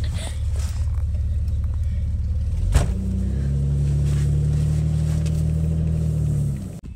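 Car engine and road rumble heard from inside the cabin while driving: a steady low drone, a sharp click about three seconds in, after which the engine note turns stronger and steadier until it cuts off suddenly near the end.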